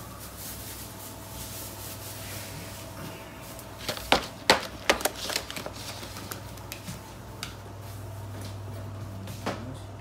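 Kitchen clatter: utensils and containers being handled, giving a quick run of sharp knocks and clicks about four seconds in and a few single knocks later, over a steady low hum.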